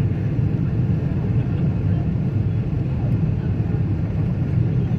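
Airliner cabin noise during the landing approach: a steady low rumble of engines and rushing air, heard from inside the cabin.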